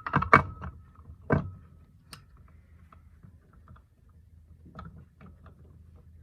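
Metal clunks and clicks from scooter CVT parts being slid back together onto the shaft: two loud knocks in the first second and a half, a sharp click shortly after, then a few light clicks near the end.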